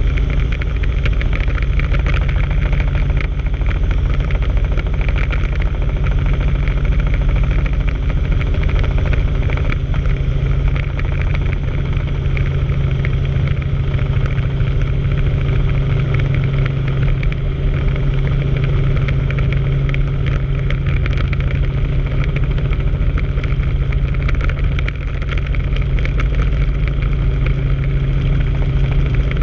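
Helicopter engine and rotor noise heard inside the cabin in forward flight: a loud, constant drone with a steady low hum.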